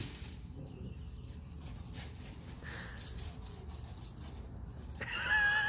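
An Italian greyhound gives a short, high, wavering whine about five seconds in, over a steady low rumble.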